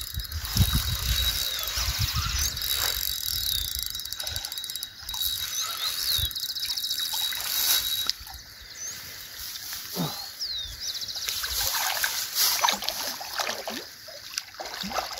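A hooked common carp splashing at the water's surface close to the bank during the fight, with birds chirping throughout.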